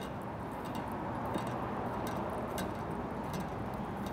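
Soft scratchy rustling of a hand tossing wet onion strings through flour in a stainless steel bowl, a few faint scrapes a second, over a steady background hiss.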